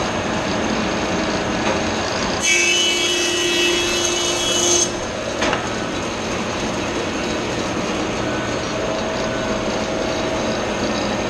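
Grizzly thickness planer running, its cutterhead planing the face of a board for about two and a half seconds, starting a couple of seconds in, with a higher, brighter whine while the wood is being cut. The motor then runs on unloaded, with a single knock just after the cut.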